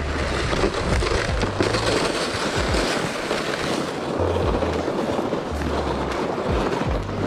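Loaded ice-fishing gear sled dragged over the snowy lake ice, a steady scraping hiss, with occasional low thumps of footsteps.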